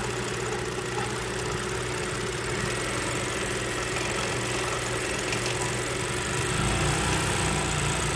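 Industrial coverstitch machine (galoneira) running steadily at sewing speed, stitching elastic binding onto fabric through a binder attachment.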